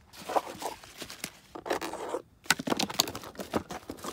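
Hand rummaging through a plastic Milwaukee Packout toolbox: irregular clicks and knocks of hard plastic cases shifting, mixed with the rustle of paper and packaging.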